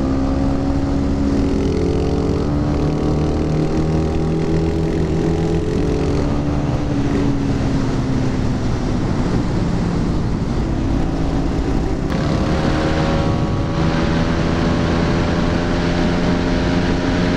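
Supermoto motorcycle engines running at a steady road cruise, pitch drifting slightly with the throttle and shifting a little after twelve seconds in, with wind rushing over the microphone.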